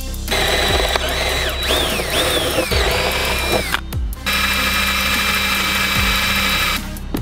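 Electric hand drill boring holes in steel: a first run whose whine dips in pitch and recovers several times as the bit bites, then, after a short pause, a second run at a steady speed.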